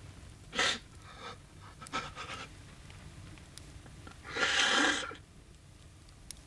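A man sobbing and gasping for breath in short heaving bursts, with one longer, voiced sob about four and a half seconds in.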